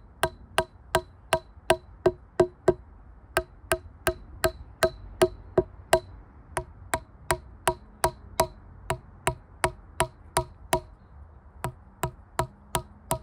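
Rubber mallet tapping wooden mushroom-spawn dowels into drilled holes in a birch log: a steady run of sharp knocks, about three a second, with a short break near the end. Each tap seats a plug flush and tight in the wood.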